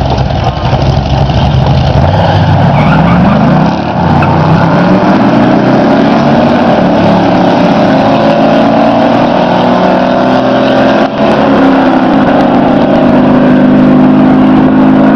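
1975 GMC pickup truck's engine pulling hard under acceleration, its pitch climbing steadily, with two short drops about four and eleven seconds in as the transmission shifts up, then climbing again.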